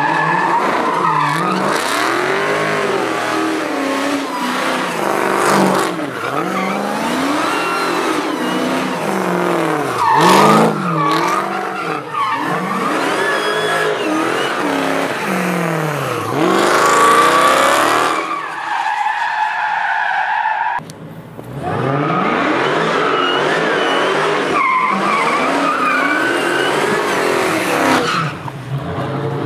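Dodge Hellcat's supercharged V8 held at high revs through a burnout and donuts, tyres squealing and skidding on the asphalt. The engine note rises and falls over and over as the car circles, with a brief drop-off about two-thirds of the way through.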